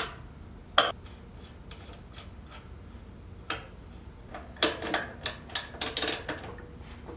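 Tools and parts clicking and knocking during moped reassembly: a few single clicks, then a quick run of about eight clicks and knocks about four and a half seconds in.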